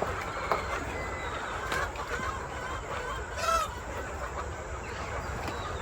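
Chickens clucking, with scattered short calls and one louder call about halfway through, over a steady low rumble.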